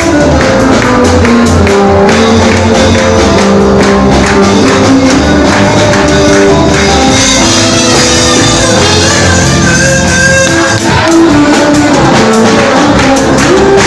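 Loud live praise-and-worship music: band with held keyboard and bass notes over steady drums and a tambourine.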